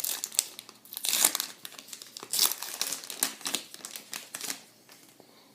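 A baseball card pack's wrapper being crinkled and torn open by hand, in a run of irregular crackles that stops near the end.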